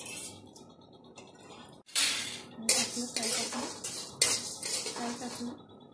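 Metal utensil clattering and scraping against a metal kadhai: quiet for the first couple of seconds, then a series of sharp clinks and scrapes.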